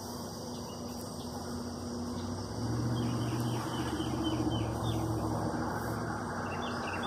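A motor vehicle's engine hum that swells about two and a half seconds in and slowly eases off, with birds chirping over it.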